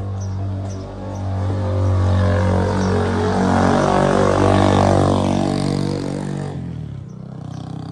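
A motor vehicle's engine passing close by, growing louder to a peak and then dropping in pitch and fading as it goes past, about six and a half seconds in; a quieter engine carries on after it.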